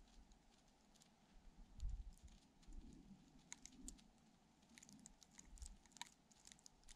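Near silence: faint, scattered light ticks and a soft low rumble of wind, strongest about two seconds in.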